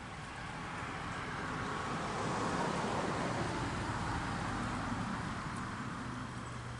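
A passing vehicle: a broad rushing noise that swells to its loudest about two and a half seconds in, then slowly fades away.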